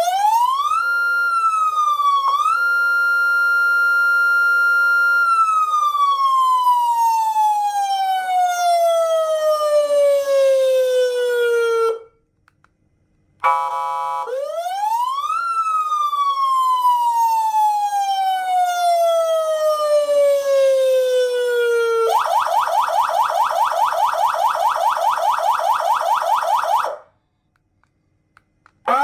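X5 400-watt dual-tone electronic siren sounding through its speaker. It climbs to a high note, holds it for a few seconds, then glides slowly down and cuts off. After a short pause it climbs and falls slowly again, then switches to a fast warble of about four pulses a second before stopping.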